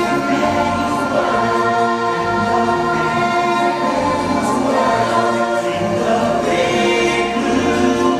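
Song from a live stage musical played through the theatre's sound system: singing over music, with long held notes.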